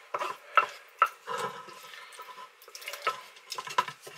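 A slotted spatula scraping and knocking chicken korma out of a non-stick frying pan into a slow cooker's preheated inner pot. There are sharp scrapes about half a second and a second in, and several more near the end. In between, the wet sauce splutters and sizzles faintly on the hot pot.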